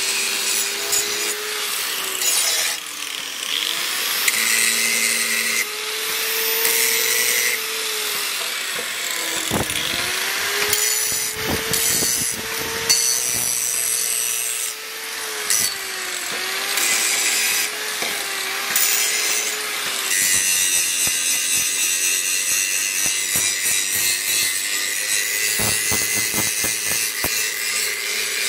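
Handheld angle grinder grinding a leaf-spring steel knife blade: the hiss of the disc on steel over the motor's whine, which sags in pitch each time the disc is pressed into the work and climbs back when it is eased off. From about twenty seconds in the grinding runs steadier.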